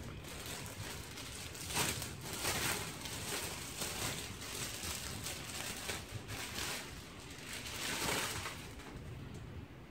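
Clear plastic clothing bag crinkling and rustling on and off as a folded garment is pulled out of it, loudest about two seconds in and again near the end.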